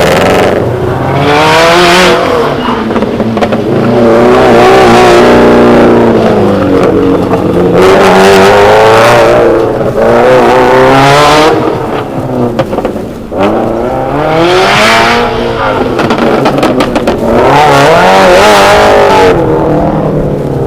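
A car engine under hard autocross driving: it revs up, eases off and revs again about six times in a row, with loud surges of rising pitch between short lifts.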